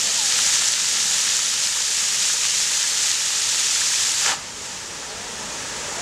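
Floor fountain's many vertical water jets spraying and splashing onto stone pavers, a steady hiss of falling water. The hiss cuts off suddenly about four seconds in as the jets shut off, leaving a much quieter background.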